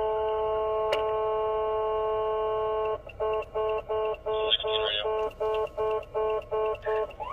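Police vehicle's electronic horn tone held in one steady blast for about three seconds, then sounded in short rapid blasts, about three a second, to get a blocking driver to move over.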